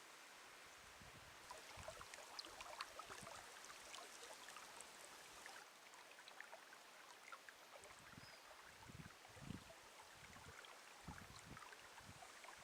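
Faint outdoor ambience: scattered small ticks and crackles, then intermittent low rumbles like wind buffeting the microphone.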